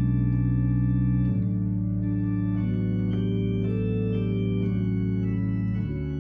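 Church organ playing slow, held chords, the harmony changing about a second in and again near the end, with a melody line moving above them.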